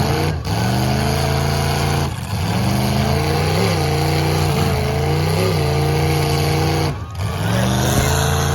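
A car engine revving high and held at steady revs. It drops off briefly and climbs back up twice.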